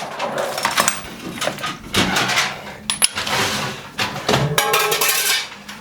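Steel hand tools clinking and scraping: a socket, extension and ratchet being worked and handled while a spark plug is taken out of the tractor's engine. The sound comes as scattered sharp clinks with stretches of scraping or rattling.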